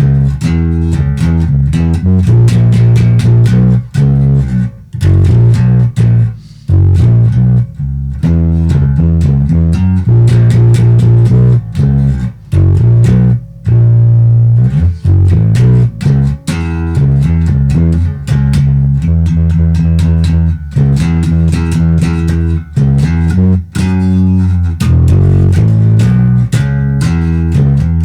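Electric bass guitar played through a Sound City amp, a Captor X and a PA with Schroeder 12PL speakers, dry with no reverb: a run of plucked bass notes and riffs with brief pauses between phrases.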